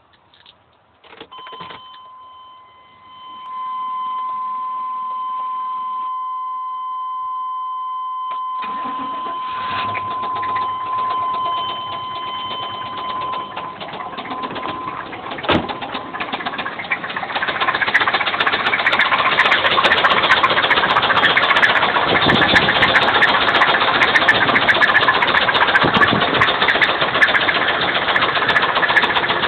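A steady warning tone sounds for several seconds, then the 2000 GM cube van's 5.7-litre V8 starts and runs with a rapid knocking that grows louder about halfway through. The owner suspects rod knock or a valve-train fault, heard just after a head gasket job.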